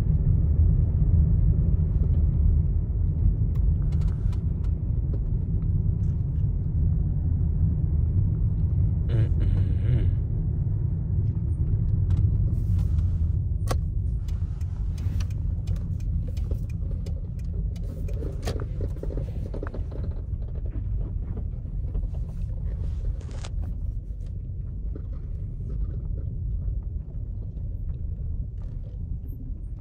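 Car cabin noise while driving: a steady low rumble of engine and tyres that grows gradually quieter, with a few light clicks in the second half.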